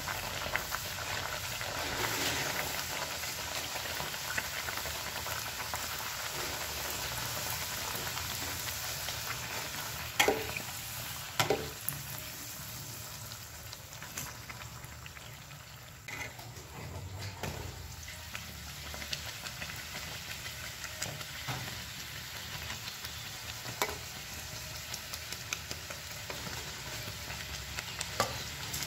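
Bhatura dough deep-frying in hot oil in a kadai: a steady sizzle and crackle of bubbling oil, with a few sharp clicks, the loudest about ten and eleven seconds in.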